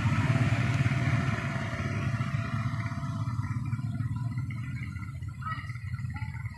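Vehicle engines in stalled traffic: a low, steady engine rumble with a motorcycle passing close by, loudest in the first second and a half and then easing off.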